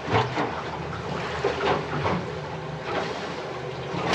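Small boat idling along at slow speed: a steady low outboard motor hum under water sloshing against the hull and wind buffeting the microphone.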